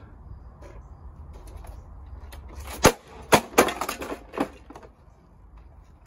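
A plastic vacuum cleaner slammed onto asphalt in a durability smash test: one sharp hit about three seconds in, followed by three more clattering knocks over the next second and a half.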